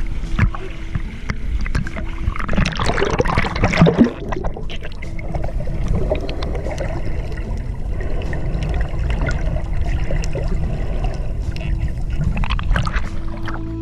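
Water splashing and sloshing around swimmers, with a louder burst of splashing about three to four seconds in.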